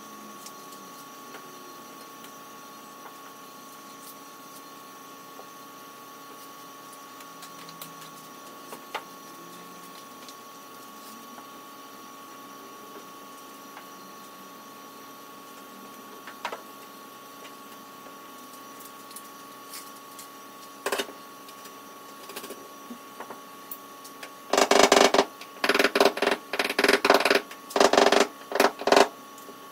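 A hand glue-tab dent puller is worked on the aluminium bonnet: a quick run of loud, short rasping pulls near the end, over a steady hum with a few faint clicks.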